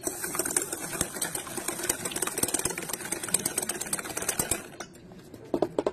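Wire whisk beating eggs in a stainless steel bowl: a rapid, steady clatter of the wires against the metal that stops about four and a half seconds in, followed by a few sharper knocks near the end.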